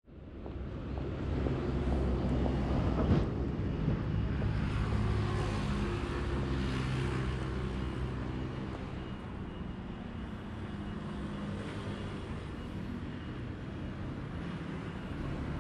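Road traffic: vehicle engines running and passing in a steady low rumble, with a single sharp click about three seconds in.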